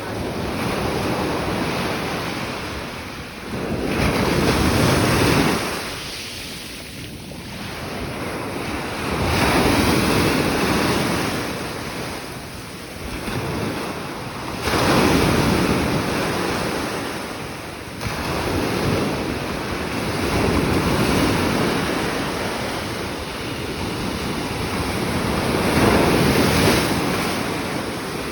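Sea waves breaking and washing on the shore, surging about every five to six seconds, with wind noise on the microphone.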